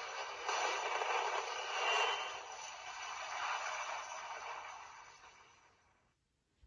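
Ultra Replica Orb Ring toy playing a hissing, rushing sound effect through its speaker, fading away and cutting to silence about six seconds in.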